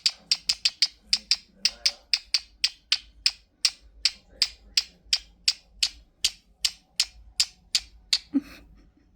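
Pet bird giving a rapid, even series of short, sharp, high chirps, about three a second, which stop shortly before the end.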